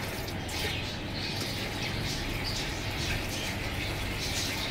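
Pot of mutton yakhni broth simmering on a gas stove, bubbling with many small irregular pops over a low steady hum.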